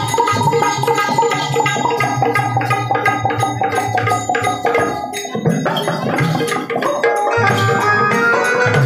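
Live devotional music: a dholak drum is beaten in a quick, steady rhythm under a long held electronic keyboard note. The low drum strokes drop out for a moment about six seconds in, then come back with short keyboard melody notes.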